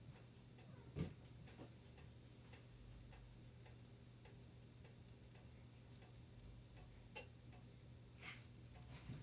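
Faint room tone with a steady low hum and hiss. Scattered small clicks and light taps come at uneven intervals, the sharpest about a second in and about seven seconds in.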